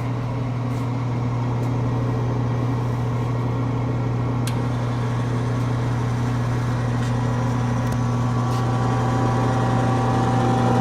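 Raytech 18-inch lapidary rock slab saw running with its blade and vise autofeed both switched on: a steady electric motor hum. A higher whine joins about eight seconds in, and there are a few faint ticks.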